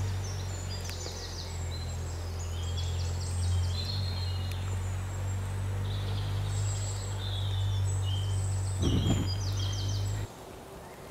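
A gas lighter's flame held burning gives a steady low hum that cuts off suddenly near the end, with a short crackling rush about nine seconds in as the plastic-bag tinder catches. Birds chirp repeatedly throughout.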